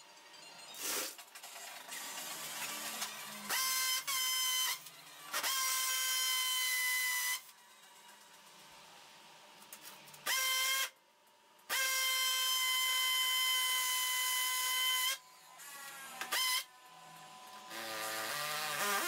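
Cordless drill boring into a brick wall in about six bursts: the motor whines up to speed, runs at a steady pitch for anywhere from a moment to about three seconds with a hiss of masonry cutting, then stops.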